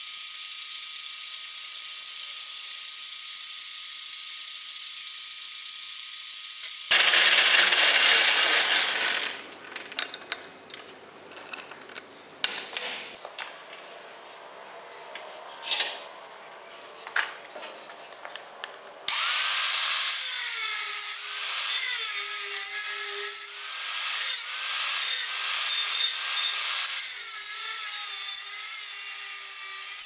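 A hole saw in a lathe cutting a steel disc, a steady high hiss; then clanks and knocks as the disc is handled and clamped in a vise. For the last third, a DeWalt angle grinder with a thin cut-off wheel runs and cuts a slit into the steel disc, a loud steady whine whose pitch wavers as the wheel bites.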